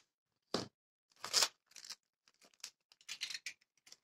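Clear adhesive tape being handled and worked in under a linoleum edge, giving a series of short crackly rips and crinkles.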